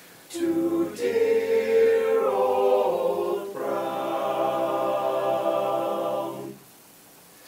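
All-male a cappella group singing in close harmony, closing the song on one chord held for about three seconds before it cuts off.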